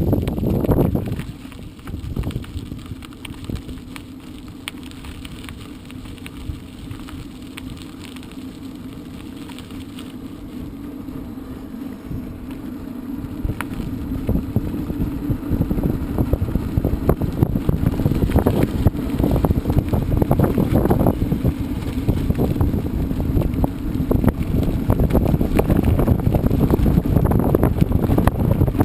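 Mountain bike riding over a trail: tyres rolling and the bike rattling over bumps, with wind rumbling on the microphone. It grows louder about halfway through.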